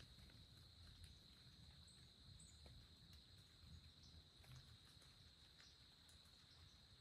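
Near silence: a faint, steady, high-pitched insect drone, with a low rumble beneath and scattered faint ticks.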